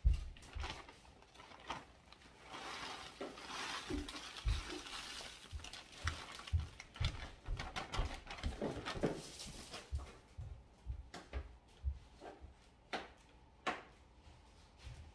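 Kitchen handling sounds: dishes and utensils knocking and clinking on a counter, with many short knocks throughout and a stretch of rustling noise in the middle.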